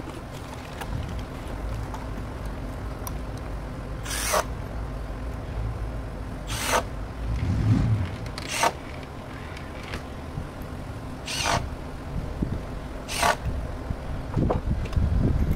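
Five short zipping rasps, a couple of seconds apart, over a steady low outdoor rumble, with a dull thump in the middle.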